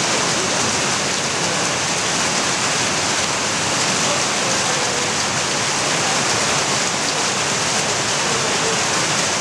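Steady splashing of water pouring into a koi pond from an inlet, heard as an even, unbroken hiss.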